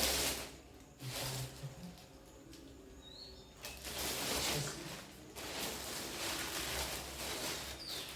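Several bursts of rustling handling noise over a low steady hum, with a faint short high chirp about three seconds in.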